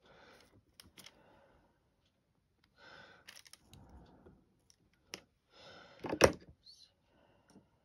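A diamond painting drill pen setting resin drills onto the canvas: faint scattered clicks and soft rustling, with one sharper, much louder tap about six seconds in.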